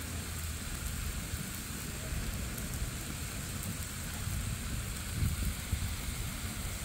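Fish moqueca sizzling and simmering in a pan over a campfire: a steady crackling hiss, with a low rumble underneath.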